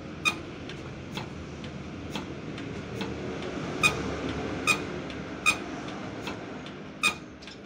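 Diesel injector nozzle on a hand-lever nozzle tester being pumped, popping open with a sharp, ringing click about eight times, roughly once a second. Each click is the nozzle opening at its set pressure of about 180, a sign that the nozzle is working properly.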